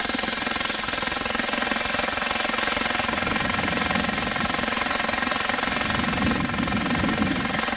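Jackhammer breaking rock, hammering rapidly and without a break.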